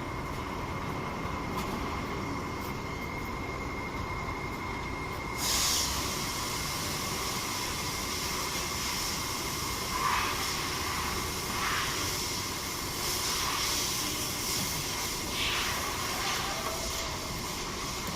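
Toyota Yaris engine idling rough, a steady running noise with a thin whine; about five seconds in, a hiss sets in and carries on, with a few brief louder swells after it.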